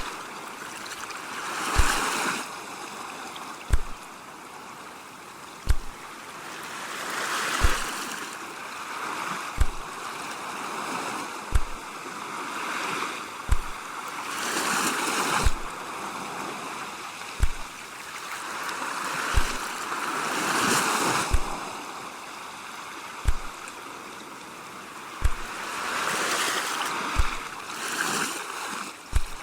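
Sea waves washing in and drawing back, the rush swelling and fading every five to six seconds. Under it, a soft, deep thump repeats steadily about every two seconds.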